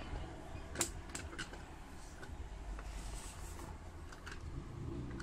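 A cardboard retail box being handled and turned in the hands: a few light clicks and taps, the sharpest a little under a second in, over a steady low rumble of room noise.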